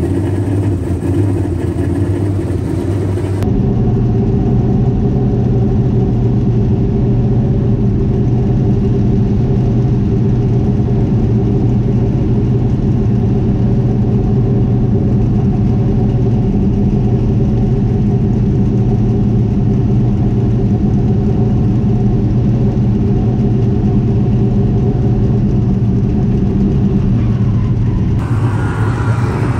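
Small-block V8 of a 358 dirt modified race car running steadily at a low, even speed, close to idle, with no revving.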